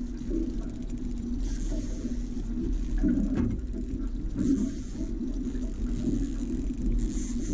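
Outboard motor running steadily at low trolling speed, with a high hiss that swells and fades every couple of seconds.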